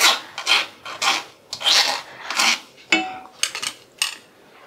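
Spoon scraping the underside of a stainless steel mesh strainer in short strokes, a few a second, with a ringing metal clink about three seconds in.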